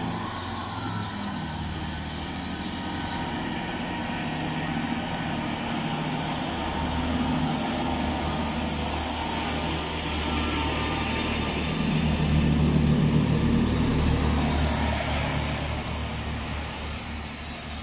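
Class 165 Turbo diesel multiple unit pulling out and accelerating past on its underfloor diesel engines: a steady low engine drone that swells about halfway through and is loudest about two-thirds of the way in as the cars pass close. A high hiss can be heard in the first few seconds.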